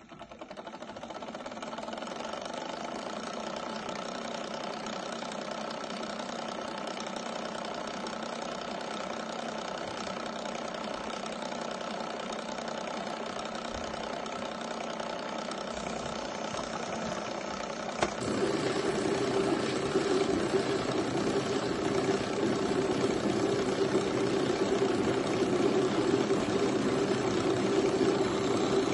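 DeLonghi PrimaDonna Elite bean-to-cup coffee machine running a milk drink, a steady mechanical hum from its pump and steam system working through the milk carafe. About 18 seconds in, the hum steps up abruptly to a louder, stronger steady drone.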